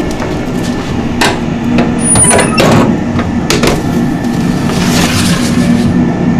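A metal baking tray being slid into a commercial deck oven: it clatters, knocks and briefly scrapes with a high squeal about two seconds in. A steady machinery hum runs underneath.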